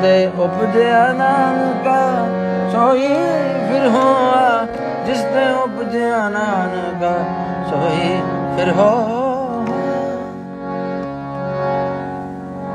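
Harmonium playing a melodic kirtan interlude, with quick ornamented phrases over sustained drone notes. It softens a little near the end.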